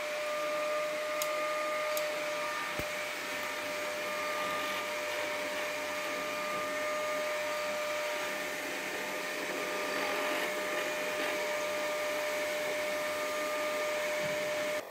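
Steady electric whir with a constant mid-pitched whine from inside a Yaesu FL-7000 solid-state HF amplifier, from one of its motors: the stepper motors that drive the band switch and tuner, or its cooling fan.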